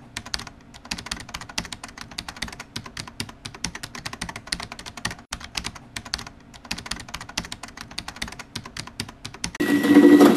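Rapid computer-keyboard typing clicks, many a second, laid over the title animation as a sound effect. Near the end it cuts abruptly to a loud ice crusher running, a steady motor hum and whine with the hiss of ice being shattered.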